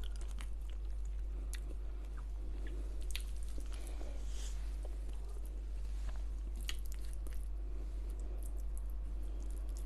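Close-miked chewing of chicken tikka masala: wet mouth smacks and small clicks scattered irregularly, over a steady low hum.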